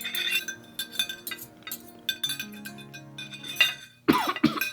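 Cutlery and glassware clinking against plates, many small clinks, over soft background music with held notes. About four seconds in, a louder person's voice breaks in.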